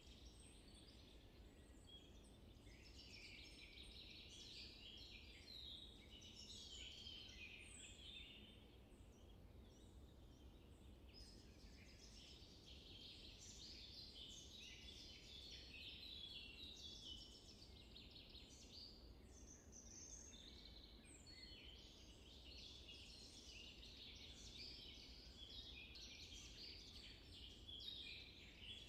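Faint chorus of many birds chirping and trilling continuously, over a low steady background hiss.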